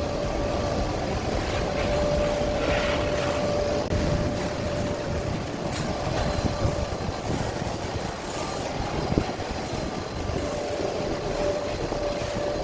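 Large ventilation fan running steadily with a steady whine over its rushing noise, with a few light knocks from installation work.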